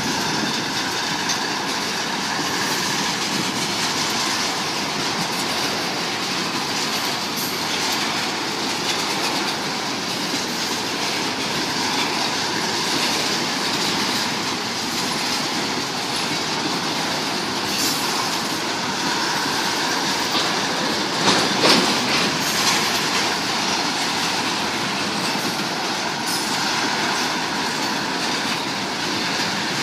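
Freight train of ethanol tank cars rolling past: a steady rumble and rattle of steel wheels on rail with a faint wheel squeal. A cluster of louder clacks comes a little over two-thirds through as wheels strike rail joints and the junction's crossing diamonds.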